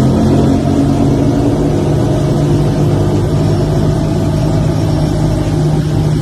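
Powerboat engine running hard at speed, a loud steady drone whose pitch creeps slightly upward.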